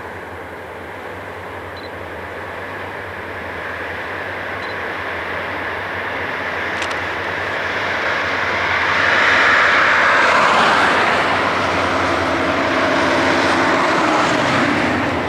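Five EMD F9 diesel locomotives hauling a passenger train, their two-stroke diesel engines droning and growing louder as the train approaches, loudest about two-thirds of the way through.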